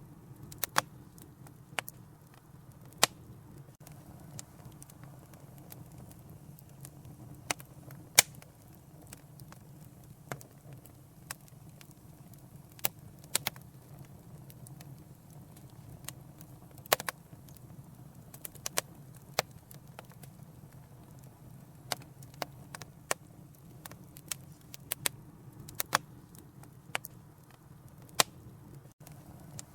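Wood fire crackling: sharp, irregular pops and snaps over a low, steady rumble of burning.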